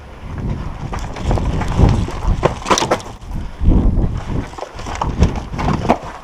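Running footsteps on the ground: irregular heavy thumps and scuffs.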